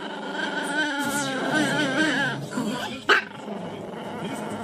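A dog barks once, sharply, about three seconds in, after a wavering pitched sound lasting a second or two.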